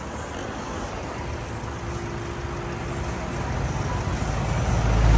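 A motor vehicle's engine running, with road noise, growing louder toward the end as a low, steady hum builds.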